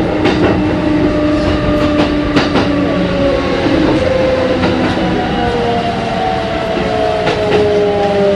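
Kintetsu 1420 series VVVF inverter electric train running, heard on board. The traction motor whine falls slowly in pitch as the train slows, over steady running noise and the odd click of the wheels over rail joints.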